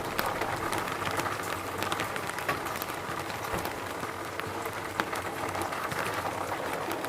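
Steady rain falling in a forest, an even hiss with many separate drops striking sharply throughout.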